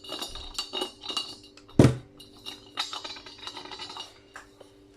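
Brass light-fitting parts clinking and knocking together as they are gripped and twisted by hand, with one loud knock just under two seconds in.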